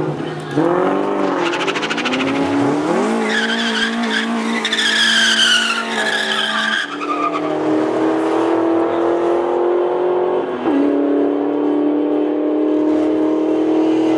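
Drag cars at the start line: an engine revs up and down, then tires spin in a burnout with loud tire squeal that cuts off about seven seconds in. After it an engine holds steady high revs, its pitch creeping slowly up.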